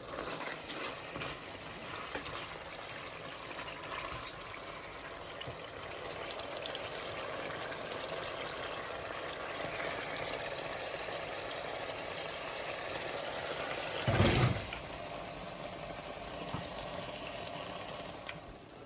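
Food sizzling as it fries in a cooking pot, with small clicks and scrapes from stirring. One loud thump comes about three-quarters of the way through.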